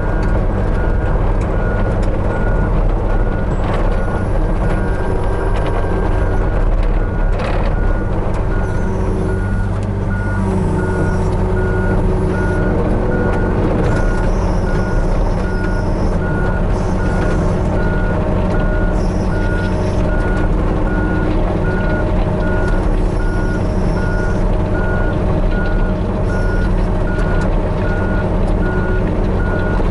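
Hitachi 35U mini excavator's diesel engine running steadily under work, with its travel alarm giving a steady run of evenly spaced short beeps throughout.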